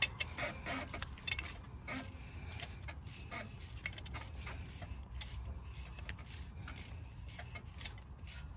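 Irregular metallic clicks and clinks from a C-clamp being screwed in to press a brake caliper piston back into its bore, with one sharper click at the start.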